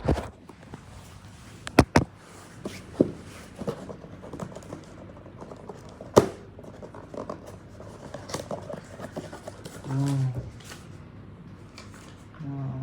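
Unboxing noises of a packaged tumbler: scattered knocks, taps, scrapes and rustles as the box and packing are handled, with a few sharper clicks. A person hums briefly about ten seconds in and again near the end.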